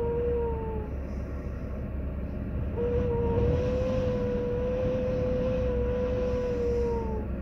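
Dredger working: a low diesel rumble under a steady mechanical whine. The whine fades out about a second in, comes back about three seconds in, holds for about four seconds and sags in pitch as it stops.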